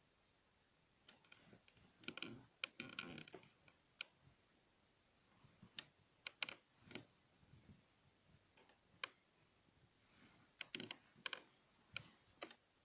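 Heating-system pipes knocking and ticking irregularly. There are sharp clicks, some alone and some in quick clusters, a knock the title calls unexplained.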